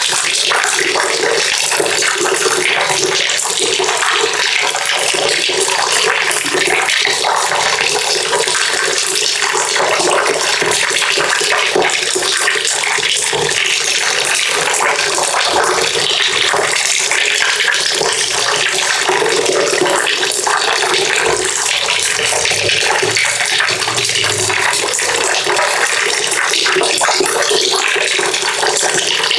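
Water pouring steadily into a bucket, a continuous splashing rush that holds an even level throughout.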